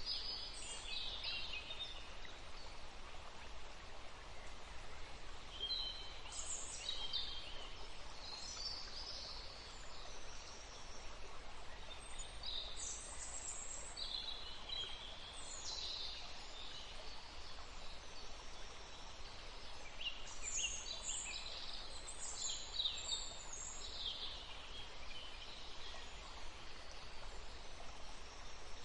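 Several songbirds chirping and singing in short, high-pitched phrases, busiest near the start and again about two-thirds of the way through, over a faint steady hiss of forest ambience.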